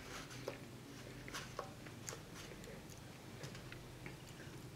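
Faint eating sounds: a plastic spoon scraping and tapping in a foam takeout container, giving a few light scattered clicks, with quiet chewing.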